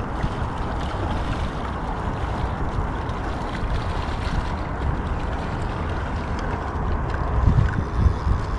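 Wind buffeting the microphone: a steady rushing with low rumbling gusts that grow stronger about seven to eight seconds in.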